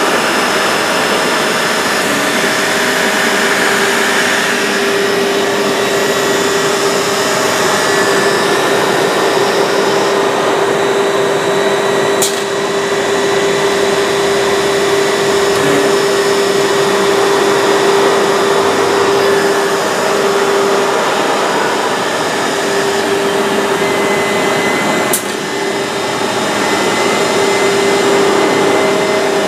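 Woodworking machinery running steadily: a constant motor tone over an even noise, with two short breaks about 12 and 25 seconds in.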